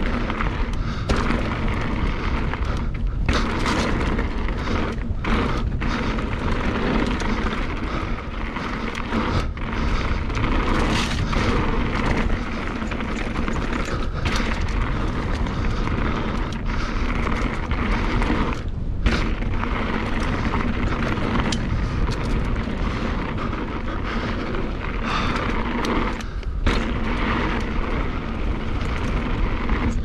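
Wind rumbling over a helmet chin-mounted camera's microphone on a fast mountain-bike downhill run, mixed with the bike's tyre and rattle noise over rough trail. The noise is steady and loud, with a few brief dips and scattered knocks.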